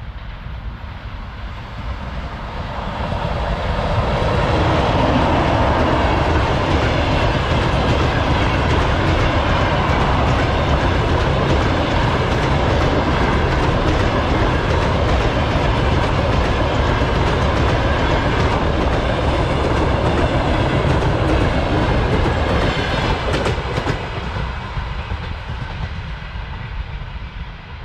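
A train passing close by: the rumble and wheel-on-rail noise swell about three seconds in, hold loud and steady for nearly twenty seconds, then fade away near the end.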